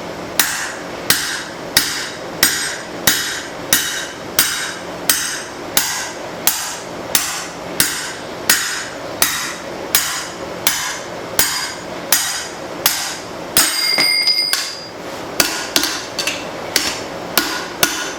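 Blacksmith's hammer striking a drift to open a hole through hot spring steel, with steady blows about one and a half a second. About three-quarters of the way through there is a short pause with a clear ringing tone, then the blows come a little quicker.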